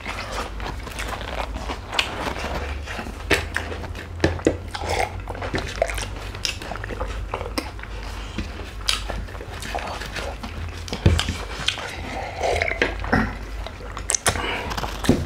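Close-miked eating by hand: chewing and mouth smacks, with many short scattered clicks and taps of fingers and food on plates over a steady low hum.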